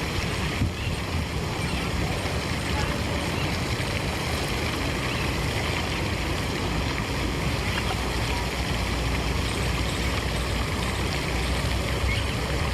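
Steady rush of flowing water, with a constant low rumble underneath.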